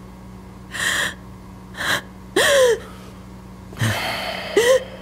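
A woman crying: about five short gasping sobs, a couple of them with a brief high wail that falls in pitch.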